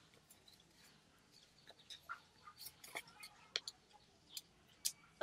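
A sheet of paper being folded and creased by hand: faint, scattered rustles and crisp little ticks, more frequent in the second half.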